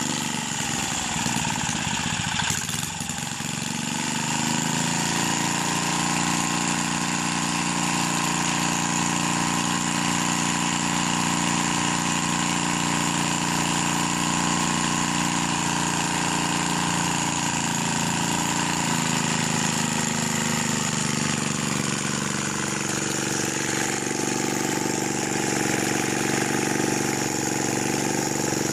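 Small tiller engine running. A few seconds in its speed rises and holds steady, then drops back to a lower, steady speed about twenty seconds in.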